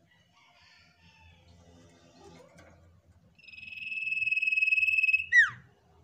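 Sirtu songbird giving a long trill at one pitch (the 'ngetir'), swelling in loudness for nearly two seconds, then one sharp whistle sliding steeply down; soft chirps come before it.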